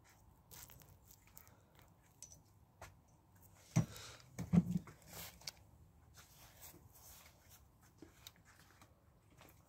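Quiet background with a few brief clicks and knocks; the loudest come in a cluster about four to five seconds in.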